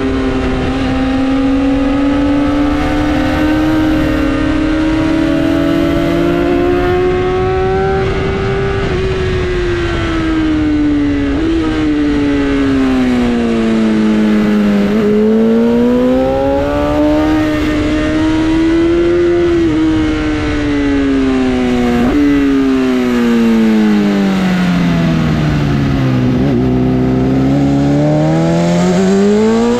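Sportbike inline-four engine running at high revs. Its pitch climbs slowly and falls back several times as the throttle is worked, with a few sharp breaks in the pitch along the way.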